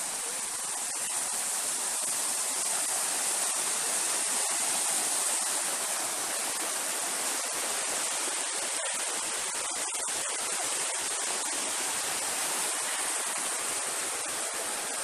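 Shallow mountain river rushing over rocks and boulders: a steady, even rush of running water.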